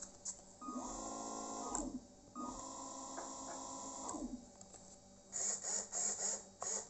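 The twin electric propeller motors of a radio-controlled model motor yacht spinning up and winding down twice, each run a whine of about a second and a half that rises in pitch as it starts and falls as it stops, the propellers turning in the air with the boat on its stand. A few short louder sounds follow near the end.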